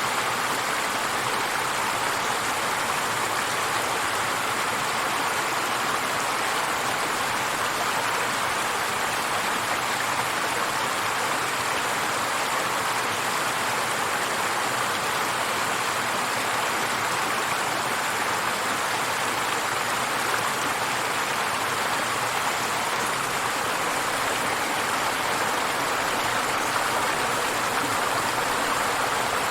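River water flowing and splashing over rocks, a steady rushing sound with no change.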